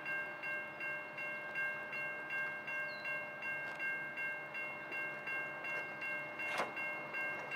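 Level crossing warning bells ringing steadily at about three strokes a second, each stroke a bright multi-tone ding: the crossing is activated for an approaching train. A single sharp click about two-thirds of the way through.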